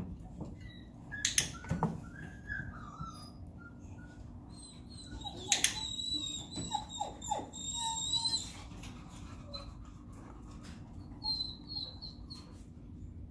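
Cavalier King Charles Spaniel whimpering inside a travel crate: a high, thin whine for a few seconds around the middle, then brief whines again near the end. There are a couple of sharp clicks in the first two seconds.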